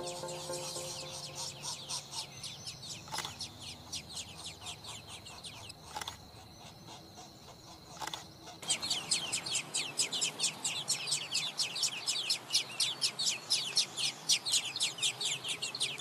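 Nestling birds begging: fast, repeated high chirps, several a second, fainter at first and much louder from about halfway through. A few soft knocks sound in the first half.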